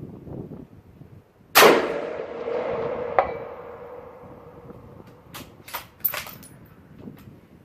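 A single shot from a bolt-action Remington 700 in .243 Winchester about a second and a half in, with a long echoing tail. About a second and a half later comes a short metallic ping, the bullet striking the steel target 300 m away. Several quick metallic clicks near the end are the bolt being cycled.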